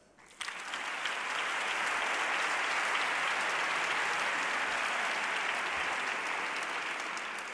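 Audience applauding, the clapping starting about half a second in, holding steady and easing off slightly near the end.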